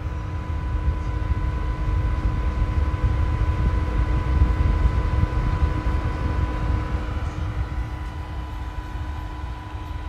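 Small white USB-powered desk box fan with seven translucent blades running at full power, its top of two speeds: a steady rush of air with a constant motor whine, very loud, easing off a little near the end.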